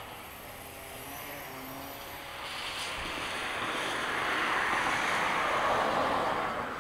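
A car passing on a wet road: the tyre hiss builds over a few seconds, is loudest for about two seconds and falls away near the end.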